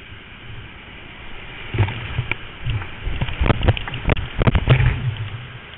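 A kayak running whitewater rapids: a steady rush of fast water, then a burst of loud splashes and thumps, about two seconds in until near the end, as breaking waves crash over the boat and camera.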